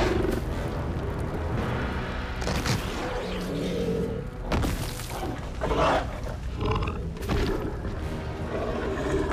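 Film soundtrack: orchestral score over the growls of a Carnotaurus sniffing around a gyrosphere. A deep rumble runs underneath, and a few sudden hits come between about 2.5 and 7.5 seconds in.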